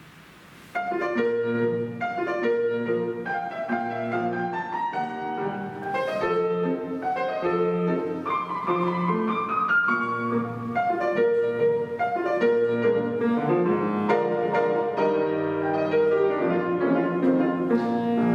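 Solo piano playing a classical piece. After a short pause, playing resumes about a second in with quick runs over held bass notes and ends on a chord that dies away at the very end.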